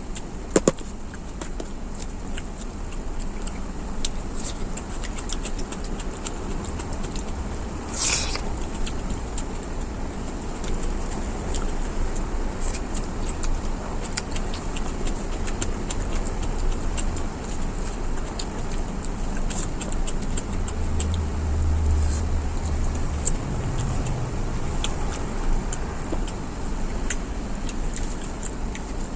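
Steady rumble of road traffic with scattered small clicks, and a heavier vehicle rumble swelling about 20 seconds in.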